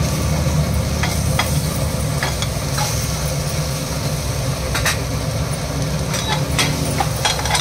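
Sliced ivy gourd (tondli) stir-frying in a stainless steel pan: a steady sizzle, with the wooden spatula scraping and tapping against the pan every second or so as the pieces are turned.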